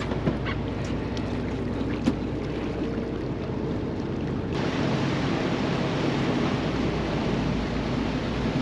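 Fishing charter boat's engine running steadily as the boat motors through the harbor, with water washing along the hull and wind on the microphone. There are two brief knocks in the first couple of seconds, and about halfway through the rush of water and wind becomes abruptly louder.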